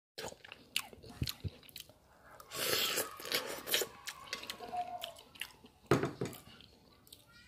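Scattered clicks and knocks of handling, with the loudest knock just before six seconds in as a ceramic bowl of soupy instant noodles is set down on a bamboo cutting board, followed by a metal fork stirring the wet noodles.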